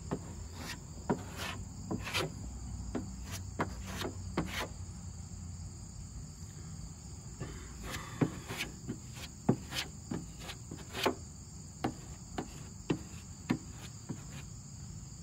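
A plastic spreader scraping and tapping body filler onto the steel quarter panel of a 1987 Camaro, heard as irregular sharp clicks. Insects keep up a steady high drone behind it.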